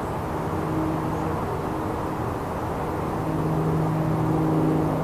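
A motor hums steadily over a rushing noise. The hum fades out for about two seconds in the middle and then comes back.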